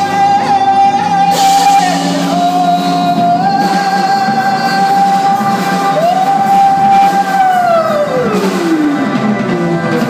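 A woman singing into a microphone with a live band, holding long high notes. Near the end she holds one last note and then slides it slowly down in pitch.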